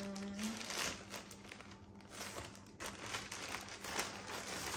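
Packaging crinkling and rustling in irregular bursts as it is handled and opened.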